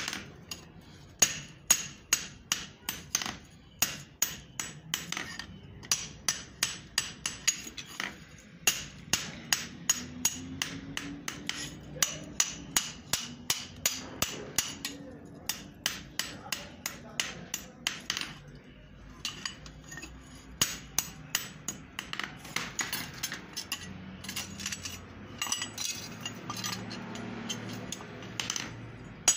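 Hand hammer beating a hot steel axe head on an anvil: runs of sharp metal-on-metal blows at about three a second, each with a short ring, broken by brief pauses.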